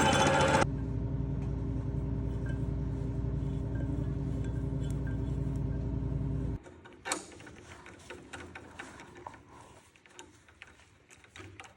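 An electric drill runs, loud for the first half-second and then steady under lighter load, and stops about two-thirds of the way through. A single metallic clank follows, then light clicks and handling sounds.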